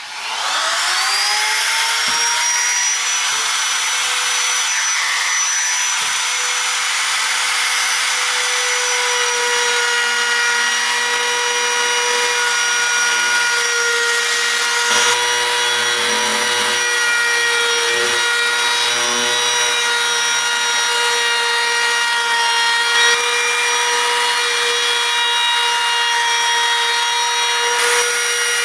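Compact trim router spinning up to speed about a second in, then running at a steady high whine while its round-over bit cuts along the wooden edge of a desktop, with rasping cutting noise over the motor.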